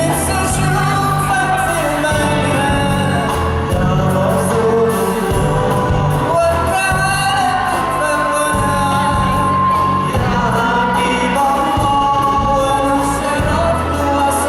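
Live band music with a lead singer, long held sung notes over a steady bass line.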